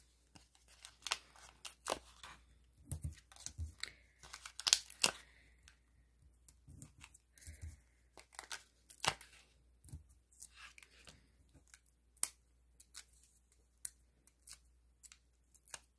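Scattered small crackles and rustles of a sheet of thin foam adhesive dots being handled, with the dots peeled from their backing and pressed onto the back of a cardstock sticker.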